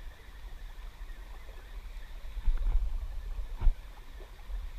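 Low, fluctuating rumble on an action camera's microphone while an angler reels in on a spinning reel with a bent rod. The rumble swells about two and a half seconds in, and there is a sharp knock about a second later.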